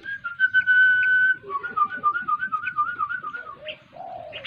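Raptor nestling giving its food-begging call while being offered raw meat: a long high whistle held for over a second, then a wavering, trilling whistle.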